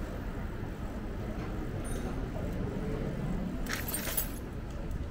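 Street traffic and road noise heard while riding an electric bike: a steady low rumble, with a brief hiss about four seconds in.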